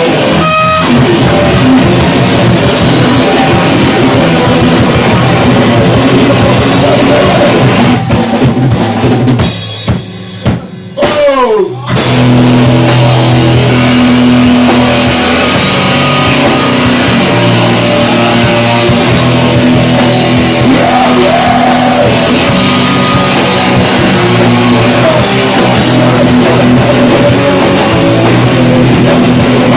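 Live rock band playing loud, with drums, distorted guitar and bass. About ten seconds in the band breaks off briefly, with a falling glide, then comes back in at full volume.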